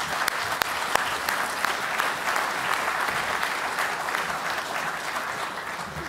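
Audience applauding, a dense patter of many hands, with a few sharper single claps standing out in the first second.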